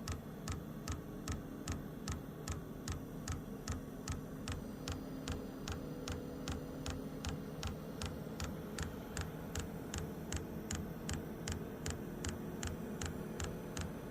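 Wippro diesel heater's dosing fuel pump clicking in a steady rhythm, about three ticks a second, over a low steady hum. The clicking shows that the pump is working again and priming fuel into the heater.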